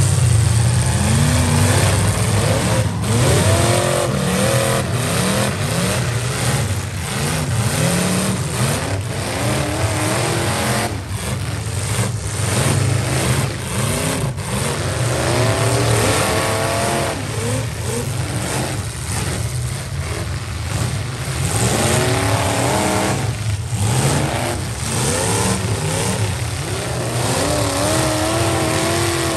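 Demolition derby trucks' engines revving up and down again and again, several at once, over a steady low engine rumble.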